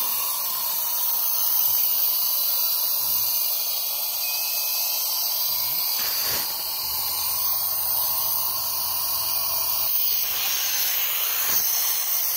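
SMC ZL6 vacuum ejector running on 60 psi compressed air: a steady high hiss of air exhausting through the venturi as it pulls vacuum on the bellows suction cups holding the bag.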